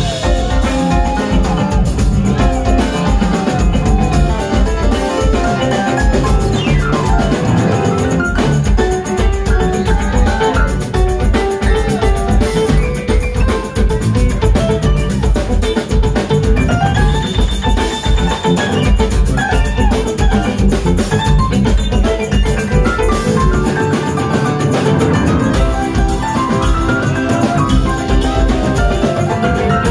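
Live instrumental funk band playing loud and continuous, with a hollow-body electric guitar, a stage keyboard, electric bass and a drum kit.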